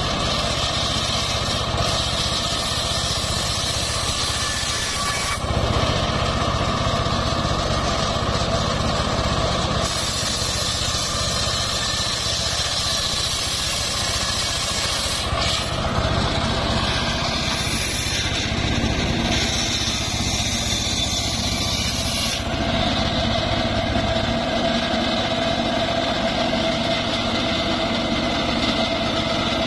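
Homemade circular saw bench running steadily, its spinning blade ripping planks of trembesi wood, with a constant mechanical drone and whine that shifts abruptly in tone a few times.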